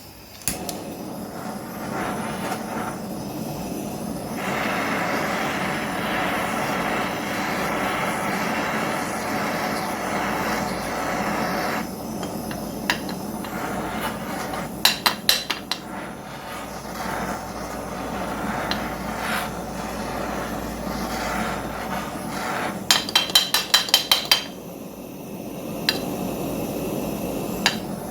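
Blowtorch burning steadily as it heats the two-stroke engine's crankcase, with a few sharp metal taps around the middle and a quick run of about eight taps near the end: tapping the warmed case to free the crank bearings.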